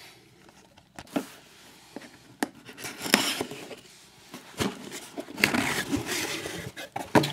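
Cardboard mailer box being handled and opened by hand: scattered taps and knocks, then rustling and scraping of the cardboard as the lid flap is pried up.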